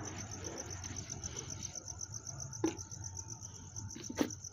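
Crickets chirping in a steady, evenly pulsed high trill, with two sharp knocks from containers being handled, about two and a half seconds and four seconds in.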